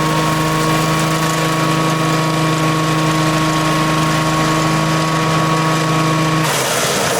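The 16 hp petrol engine of a wood chipper running steadily with an even hum. About six and a half seconds in, the sound changes abruptly to a noisier, hissier one.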